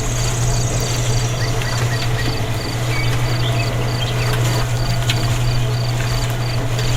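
An insect chirping in even high-pitched pulses, about two to three a second, over a loud steady low hum. A few short bird-like chirps come in near the end.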